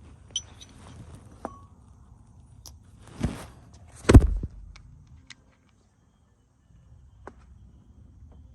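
Scattered metal clicks and knocks of a socket on a long extension being worked onto a starter mounting bolt, with a heavier knock about three seconds in and a loud thump about four seconds in. The sound drops out completely for about a second and a half after the five-second mark.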